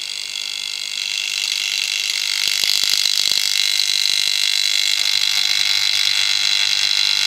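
Vacuum cleaner motor, wired in series as a ballast, starting up as the Variac voltage is raised: a steady high whine that grows louder over the first few seconds, then holds. A low hum joins about five seconds in.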